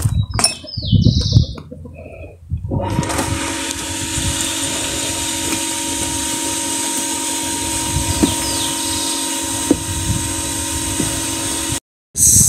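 Water sloshing in a pot of dye as wet wool is handled, then a steady, even machine-like hum with a hiss for about nine seconds, which cuts off abruptly near the end.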